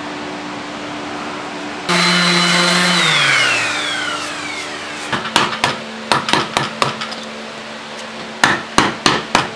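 A steady hum. About two seconds in, a power tool runs for about a second, then spins down with a falling whine. From about halfway, a hammer strikes the wooden trestle in quick runs of several blows a second.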